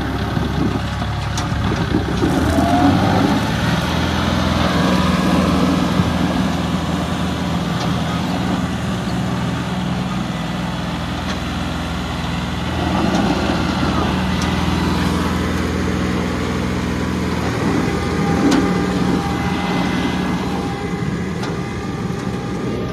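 John Deere 5210's three-cylinder diesel engine running hard under load as the tractor strains to pull a stuck, loaded trolley out of soft dirt. The engine note swells and eases several times.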